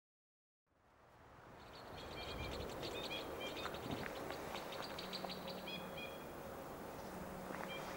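Two-barred crossbills calling: runs of short, high, repeated call notes in bursts with brief gaps. Under them is a steady background hiss that fades in out of silence within the first second.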